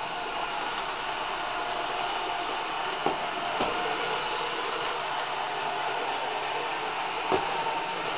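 Roomba robot vacuum running: a steady whir of its motor and brushes with a faint held tone. There are a couple of light knocks about three seconds in and another near the end.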